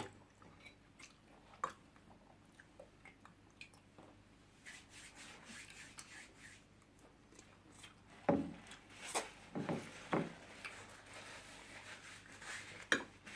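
Close-miked eating sounds: chewing with light clicks and scrapes of cutlery on a plate, and a few louder mouth and dish sounds about two-thirds of the way through.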